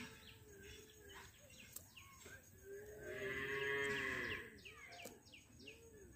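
A cow mooing once, about three seconds in, for just over a second, with small birds chirping faintly throughout.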